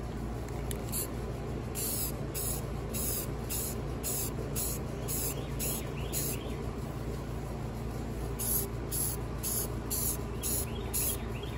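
Aerosol can of Rust-Oleum 2X Ultra Cover spray paint hissing in short bursts, about two a second, with a pause of about two seconds midway.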